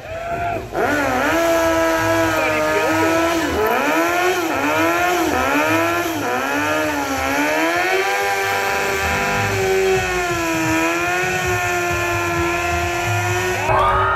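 Sport bike's engine revved hard through a burnout. The pitch swoops up and down repeatedly for the first several seconds, then is held high and fairly steady while the rear tyre spins and smokes.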